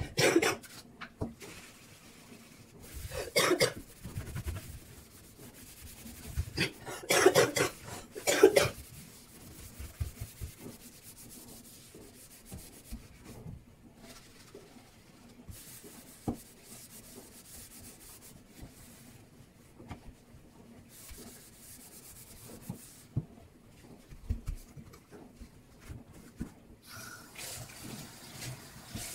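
Sponge scrubbing a stainless steel sink and drainer, with a few louder bursts in the first nine seconds and quieter rubbing after. Near the end the tap starts running.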